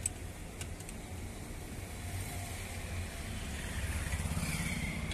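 Motor-vehicle engine idling steadily, a low rumble that grows a little louder about three and a half seconds in.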